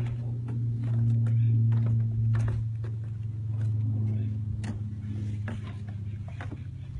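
Side-by-side off-road buggy (UTV) engine idling with a steady low hum, slightly louder between about one and two and a half seconds in. Scattered light clicks and footsteps on the stone steps sound over it.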